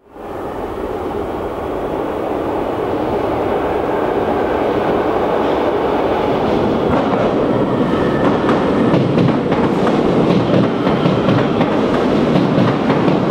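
CNR-built Serie 200 subway train rolling into the depot tunnel, growing louder as it approaches. From about seven seconds in its wheels clatter over the rail joints and switches in quick clicks.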